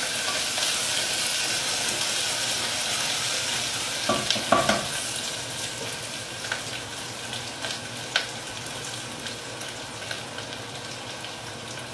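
Sliced onions with whole spices and a bay leaf frying in hot oil in an aluminium pressure cooker pot, a steady sizzle that slowly eases. A few knocks about four seconds in and a single click near eight seconds.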